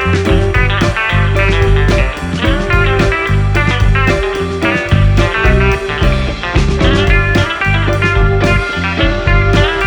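Background music: guitar-led blues-rock with a steady beat and heavy bass.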